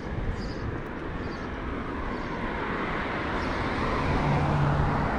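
Street traffic: a car approaching, its engine and tyre noise growing louder through the second half, with footsteps on pavement at walking pace that fade after about a second and a half.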